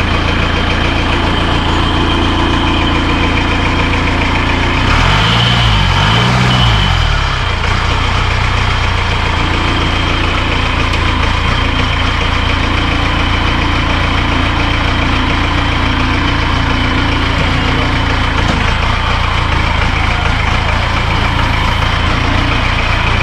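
Engine of a Nissan 4W73 'One Ton' weapons carrier running steadily at a slow crawl and idle. About five seconds in it is revved up and back down a couple of times.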